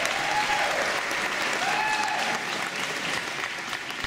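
Audience applauding, a dense crowd of clapping hands, with a few voices whooping in long rising-and-falling cheers over it. The clapping eases a little toward the end.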